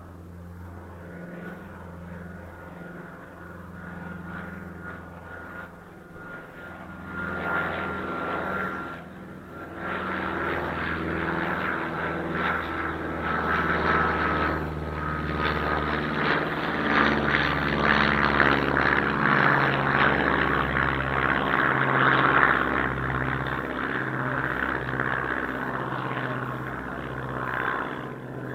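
Mini 250-size FPV quadcopter's motors and propellers whining, their pitches jumping up and down in steps as the throttle changes, with rushing wind noise that grows louder after the first few seconds.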